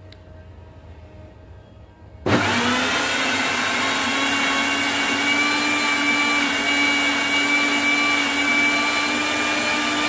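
Panasonic Monster mixer grinder's 750-watt motor switching on about two seconds in and running steadily, blending shredded coconut and water in the blender jar to extract coconut milk. A loud whine that climbs briefly in pitch as the motor spins up, then holds steady.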